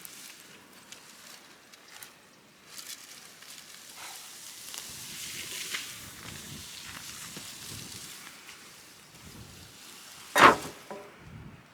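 Dry broom brush rustling and crackling as it is handled, with one sharp knock about ten seconds in.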